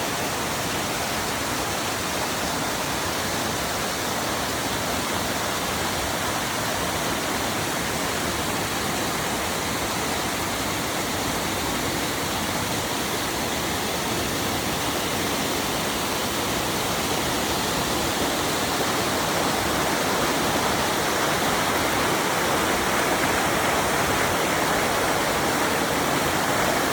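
Waterfall: a steady rush of falling, splashing water that grows slightly louder over the last several seconds.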